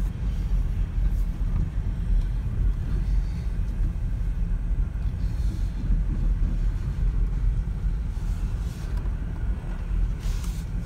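A vehicle being driven, with a steady low engine and road rumble.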